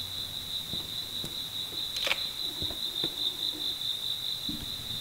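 A cricket trilling without pause, one continuous high-pitched tone. A few light clicks and knocks sound over it, the loudest about two seconds in.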